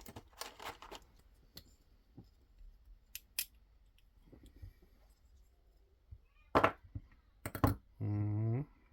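Small objects being handled and set down on a work surface: scattered light clicks, then two sharp snaps about a second apart near the end.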